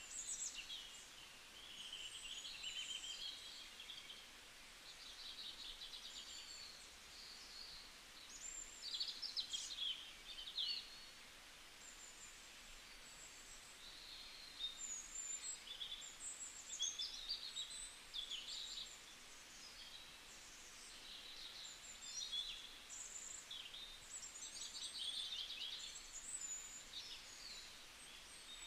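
Small songbirds chirping and trilling almost without pause, high and fairly faint, over a light steady hiss of outdoor ambience.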